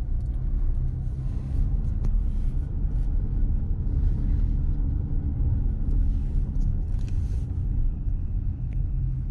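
Steady low rumble of a car driving slowly, heard inside the cabin: engine hum and tyre noise on brick paving.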